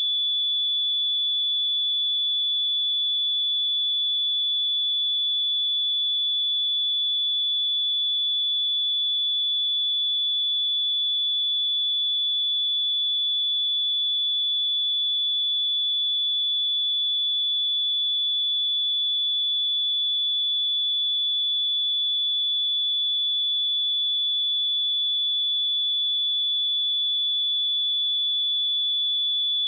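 Pure 3452 Hz sine-wave test tone, a single steady high-pitched beep held at constant level, used for testing speakers and headphones.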